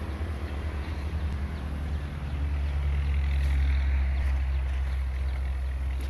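Heavy-equipment engine running with a steady low drone; it grows louder a couple of seconds in, peaks around the middle, then eases slightly.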